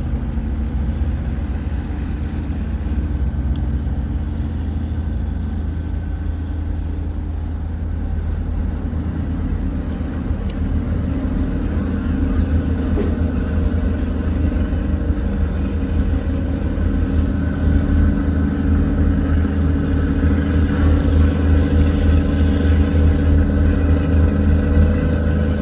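River tugboat's diesel engine running steadily under load as it tows a cargo barge against the current: a low pulsing drone with a hum above it, growing louder in the last several seconds.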